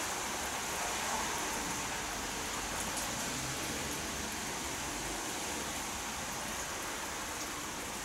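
Steady rain falling, heard as a continuous even hiss.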